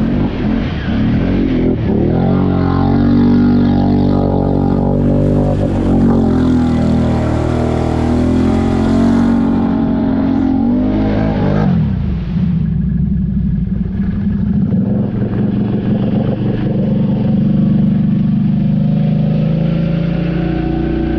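ATV engine running under throttle. The pitch climbs about two seconds in and holds high, then drops off just before halfway. It settles into steadier, lower running that slowly rises again near the end.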